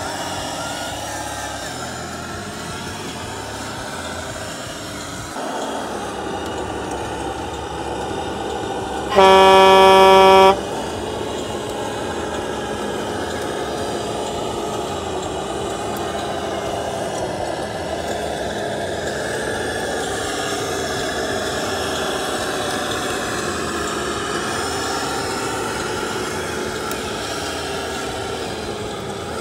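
RC MAN truck model running, its drive sound rising and falling in pitch with the throttle. A single loud truck air horn blast lasting just over a second sounds about nine seconds in.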